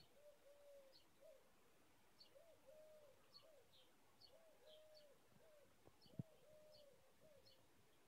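Faint birdsong: a dove cooing in repeated low, arched notes, with small birds giving short high chirps throughout. A single soft knock about six seconds in.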